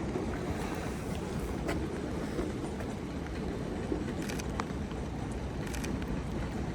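Steady low rumble of passing vehicles, with a few quick clusters of clicks from a camera shutter.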